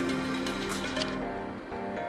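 Background music with held notes changing in steps and sharp percussion hits.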